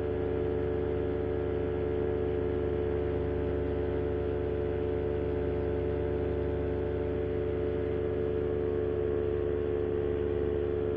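Paramotor's Moster 185 single-cylinder two-stroke engine and propeller running at a steady cruise throttle, a constant drone that holds one pitch.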